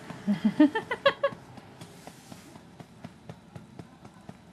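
Baby vocalizing: a quick string of about half a dozen short, squeaky sounds rising in pitch in the first second and a half, then only faint clicks.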